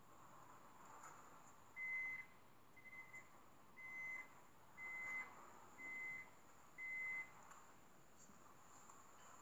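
Six short electronic beeps at one steady pitch, about one a second, starting about two seconds in, over faint hiss.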